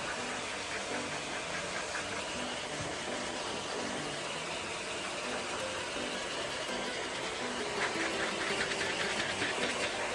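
Pet grooming dryer blowing air through its hose onto a beagle's wet coat: a steady rush of air that gets a little louder and more fluttery near the end.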